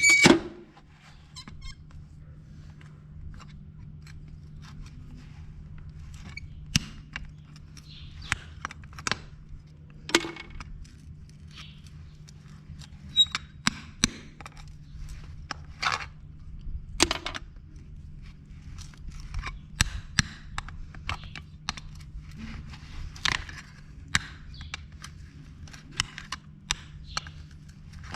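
Farrier's hand tools working on a horse's hoof: irregular snips, clicks and squeaks, a few every second or two, over a steady low hum.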